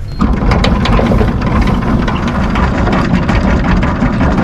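Anchor windlass hauling in anchor chain, starting suddenly just after the start: a steady machine hum with a rapid run of clanking clicks as the chain links feed over the gypsy.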